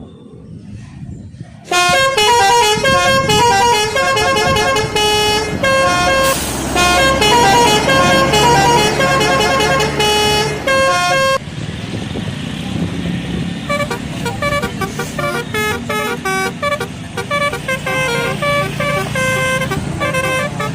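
Bus telolet horn, a multi-trumpet air horn, playing a fast tune of quickly changing notes over the bus's running engine, loud from about two seconds in until about eleven seconds. After a short pause a quieter telolet tune starts up and carries on to the end.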